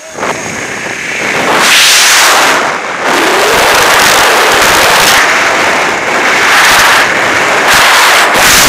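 Freefall wind rushing over a skydiving camera's microphone, a loud steady rush that swells sharply about a second and a half in as the jumpers leave the aircraft door and pick up speed.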